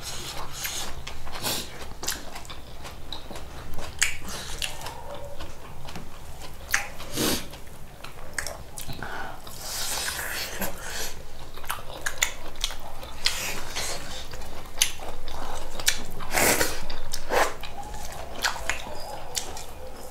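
A person chewing and biting food close to the microphone, with irregular short clicks and mouth smacks.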